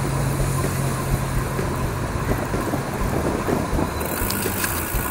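Bicycle rolling along a gravel towpath: tyre crunch and rattle with wind on the microphone, over a steady hum of city traffic. More hiss comes in about four seconds in.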